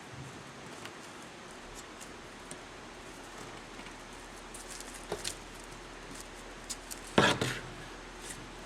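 Handling sounds of a rubber weatherstrip being worked into a vent window frame by hand and tool: scattered light clicks and scrapes, with a brief louder clatter of knocks about seven seconds in.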